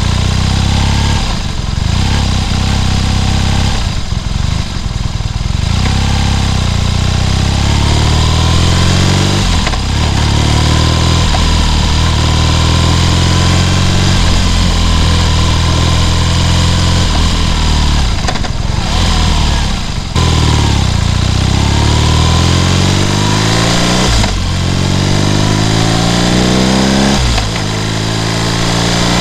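BMW R nineT's 1170 cc air/oil-cooled boxer twin accelerating through the gears. The engine note climbs, drops at each shift, then climbs again, several times over.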